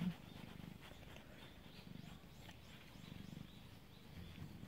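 Domestic cat purring while its head is stroked: a faint, steady, low rough rumble.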